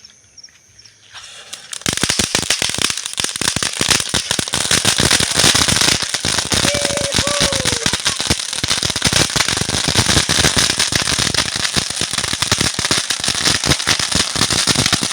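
A vulcão firework fountain crackling: after a quiet start, dense rapid crackling and popping sets in about two seconds in and keeps going without a break.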